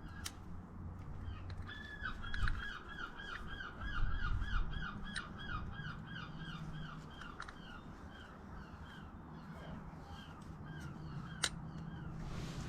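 A bird calls a rapid series of short, hooked notes, about three a second, fading away after a few seconds. A low hum runs under it, with a few sharp clicks of small metal parts being handled.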